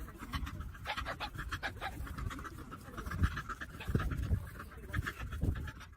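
A dog panting in quick, continuous breaths.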